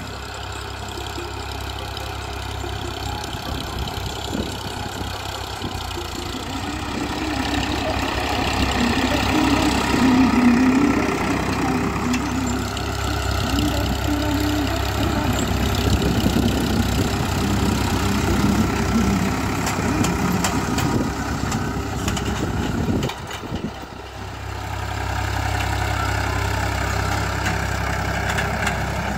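Farmtrac 60 Valuemaxx tractor's diesel engine running steadily under load as it pulls a nine-tine cultivator, growing louder and softer as it works, with a brief dip about two-thirds of the way through.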